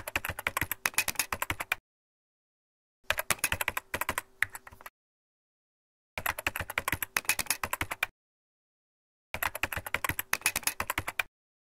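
Typing sound effect: rapid computer-keyboard clicks in four bursts of about two seconds each, with silence between them.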